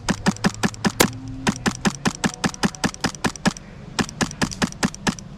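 Airsoft gun firing rapid strings of shots, about seven or eight sharp cracks a second, in three bursts with short pauses between them.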